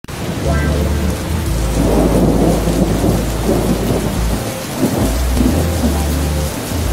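Steady heavy rain with thunder rumbling, a long low roll that swells through the middle.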